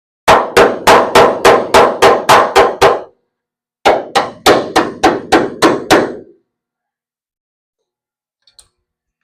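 Hammer striking metal in two quick runs of blows: about ten strikes, a short pause, then about seven more, each with a short clanging ring.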